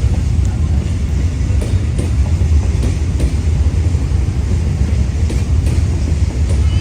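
Freight train wagons rolling past, a loud steady rumble with irregular clicks from the wheels crossing rail joints.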